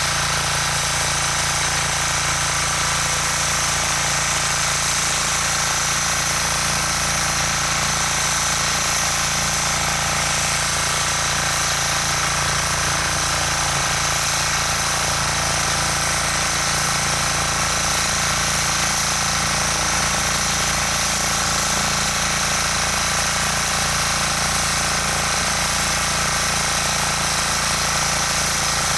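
Rotakt walk-behind tiller (motocultor) engine running steadily as its rotary tines till the soil, with no change in speed.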